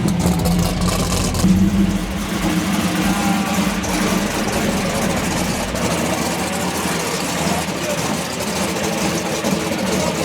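A car engine idling, with a steady low hum that is strongest in the first couple of seconds and noisy background throughout.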